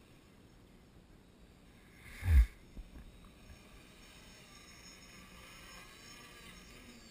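Small electric quadcopter motors and propellers whining faintly, with a brief loud rush of air noise and a low thump on the microphone about two seconds in.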